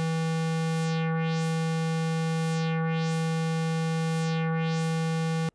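Moog Mother-32 analog synthesizer holding one steady low note while a triangle-wave LFO, its polarity flipped, sweeps the filter cutoff down and back up about every 1.7 seconds, giving a slow, regular wah. The note cuts off abruptly at the end.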